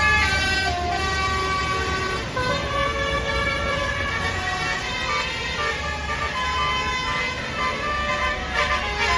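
Indonesian bus "basuri" telolet horn, a multi-trumpet melody air horn, playing a tune of held notes that step from pitch to pitch, over a low steady rumble.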